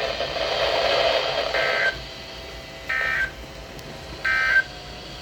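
Emergency Alert System end-of-message data bursts: three short, identical warbling digital tone bursts about a second apart, marking the end of the warning broadcast. They follow about two seconds of rushing noise.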